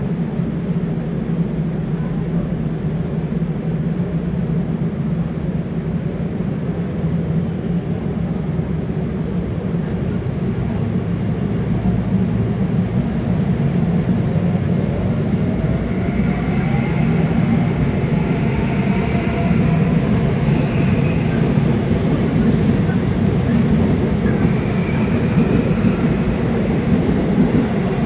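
Korail Class 312000 'Cube' electric multiple unit on Seoul Subway Line 1 pulling out of the station. A steady low hum grows louder from about halfway through, and the motor whine rises in pitch as the train gathers speed.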